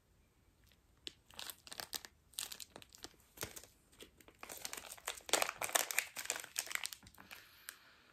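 Clear plastic bag of wax melt cubes crinkling and rustling as it is handled, in irregular crackles that get busier in the second half.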